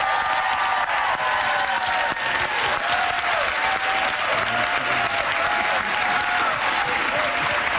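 Studio audience applauding steadily, with some cheering voices over the clapping.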